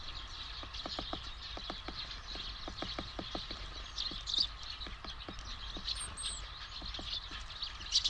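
Flock of Eurasian tree sparrows chirping and chattering continuously, a dense mix of short high chirps with irregular short ticks underneath.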